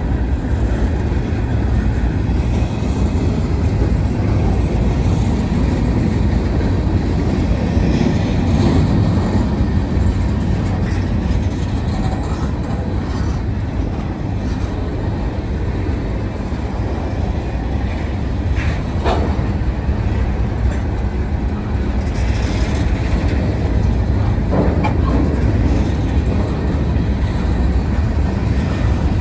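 Norfolk Southern freight train's covered hopper cars rolling steadily past with a continuous low rumble and clickety-clack of wheels over the rail. A couple of brief higher-pitched squeals come through about two-thirds of the way in.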